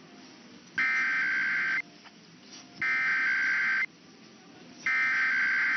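Emergency Alert System digital data (SAME code) sent three times: three raspy buzzing bursts of data tone, each about a second long and about a second apart.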